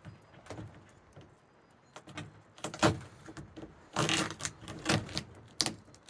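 Duct tape being peeled off a Thule roof box's ABS plastic shell in several short rips, the longest about four seconds in.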